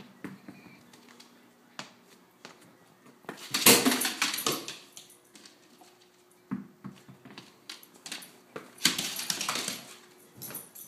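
An Australian Shepherd scrambling after a small rubber ball on a tile floor: scattered sharp clicks of claws and ball on the tiles, with two louder scuffling rushes, one about a third of the way in and one late.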